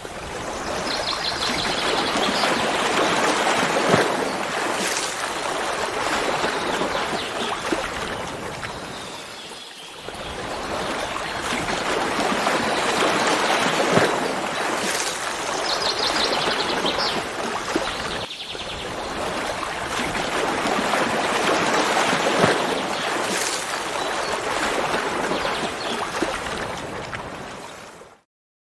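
Steady rushing water of a waterfall, dipping briefly twice, with a short high chirping trill near the start and again about halfway through.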